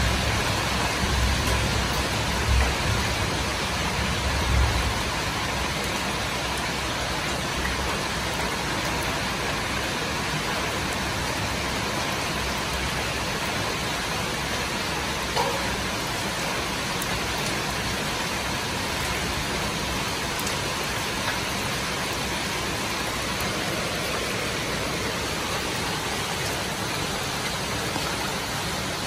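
Heavy rain pouring down steadily, a dense even hiss. A low rumble sounds through the first five seconds.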